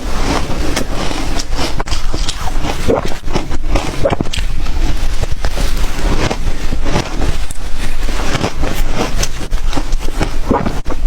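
Ice being bitten and chewed right at the microphone: a dense, continuous run of sharp cracks and crunches.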